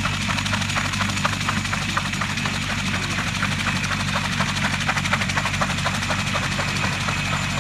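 Mi-2 helicopter running on the ground: its twin turboshaft engines give a steady drone with a high whine, and the main rotor sets up a fast, even beat.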